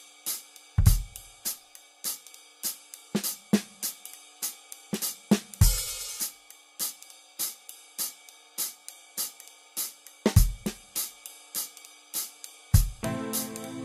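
Instrumental music: a steady hi-hat rhythm over held tones, with a few deep bass drum hits; a fuller bass and chord part comes in near the end.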